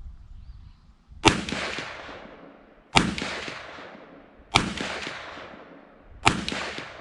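Smith & Wesson Model 19-3 .357 Magnum revolver fired four times, a shot about every second and a half, each shot trailing off in a long echo.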